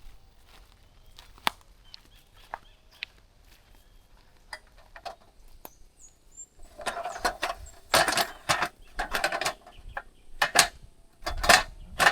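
Faint scattered clicks, then from about seven seconds in repeated loud crackling rustles of dry vegetation being pushed through or stepped on, with a couple of low thumps near the end.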